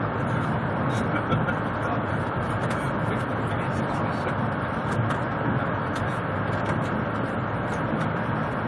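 Steady rumble and rush of a high-speed bullet train running at speed, heard from inside the passenger carriage, with a few faint ticks over it.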